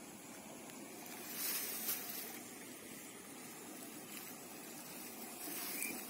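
Quiet outdoor ambience with a steady low hiss of wind, and a brief rustling hiss about one and a half seconds in, with a slight swell again near the end.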